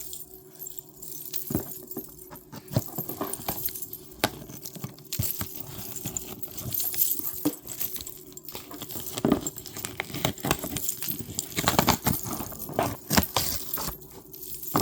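A cardboard shipping box being opened and handled by hand: irregular crinkling, tearing and scraping, with many sharp clicks and rustles.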